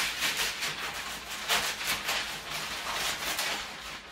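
Scissors cutting through a sheet of wrapping paper, a quick run of rasping snips with paper rustling.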